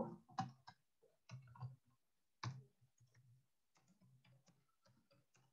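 Faint computer keyboard typing: irregular separate keystrokes, a few slightly louder taps among them.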